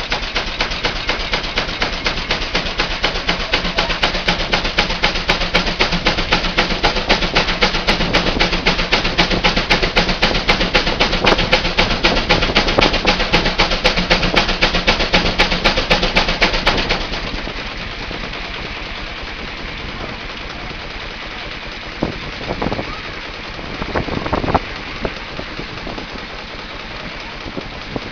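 Aultman Taylor 25-75 steam traction engine running belted to a brake dynamometer, its exhaust beating out rapid, even, sharp chuffs. About 17 seconds in the beats soften abruptly to a quieter, steadier running sound, the change that marks the dyno's brake load coming off. Two short louder noises follow near the end.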